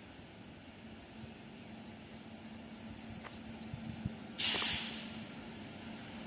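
Faint, steady low hum of a distant approaching locomotive, slowly growing louder. About four and a half seconds in there is a short, sharp hiss that fades within half a second.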